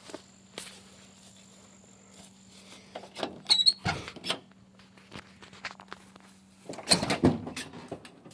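Handling noise from a phone camera whose lens is covered by a finger: clicks, knocks and rubbing against the microphone, in two louder clusters about three seconds in and about seven seconds in, over a faint steady hum.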